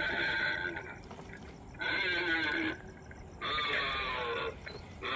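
A Halloween yard display's loudspeaker playing a looped spooky sound effect: a wavering, whinny-like cry just under a second long, repeating about every second and a half to two seconds.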